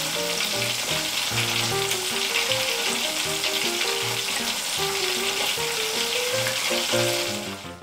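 Hot oil sizzling steadily around battered banana slices frying in a small pan, over soft background music. The sizzle cuts off at the very end.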